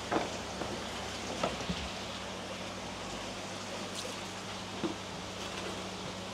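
Steady splashing hiss of water running through koi tanks and their filtration, over a low steady pump hum, with a few light splashes or knocks.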